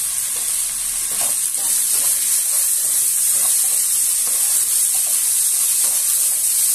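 Rice and toasted vermicelli sizzling in hot oil in a nonstick pot while a wooden spoon stirs them, with faint scraping strokes now and then: the rice being sautéed for pilaf before the water goes in.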